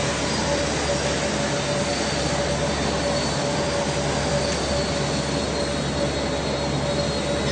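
Steady industrial machinery drone: constant mechanical noise with a steady hum tone running through it.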